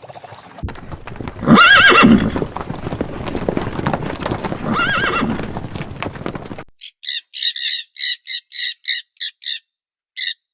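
A horse whinnying twice over a steady background rush. Near the end it cuts suddenly to a quick run of short, high chirps from a bird.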